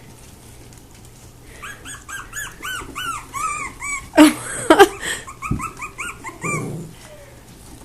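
Havanese dogs whining excitedly: a quick run of short, high squeaky whines, each rising and falling, about three a second, broken by two sharp yips about four and five seconds in.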